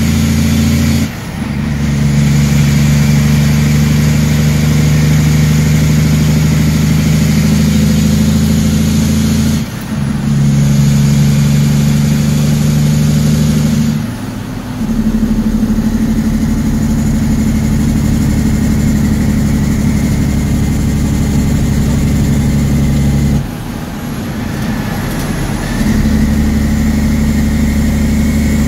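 Heavy truck's diesel engine heard from inside the cab, pulling steadily on the road. The engine sound dips four times, once for about two seconds, and each time comes back at a different pitch as the driver changes gear.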